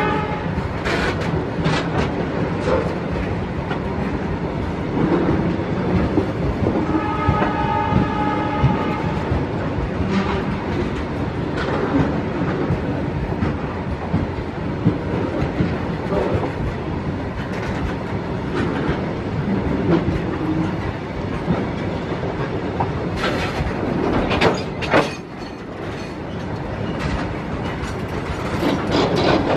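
Freight train of BCNA covered wagons rolling slowly past, the wheels clattering in a clickety-clack over the rail joints, with a brief high-pitched squeal about seven seconds in and a few sharp clanks near the end.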